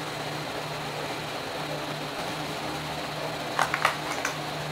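Steady low hum of room noise, then from about three and a half seconds in, a few quick sharp crinkles and clicks of clear plastic packaging handled close to the microphone.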